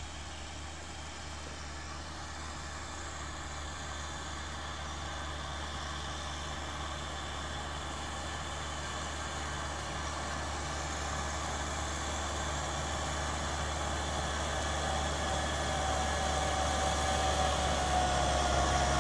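Kubota tractor's diesel engine running steadily as it pulls a plough through dry soil, growing gradually louder as the tractor comes closer.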